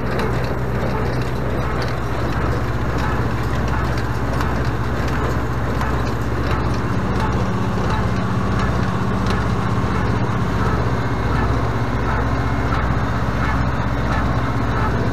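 Renault 656 tractor's engine running steadily under load while it drives a Renault 100 small square baler through its PTO shaft, the baler picking up and pressing clover hay.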